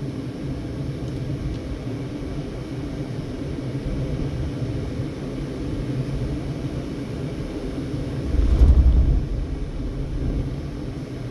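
Steady low rumble of a car's engine and road noise heard from inside the cabin while driving slowly, with a brief louder low rumble about three-quarters of the way through.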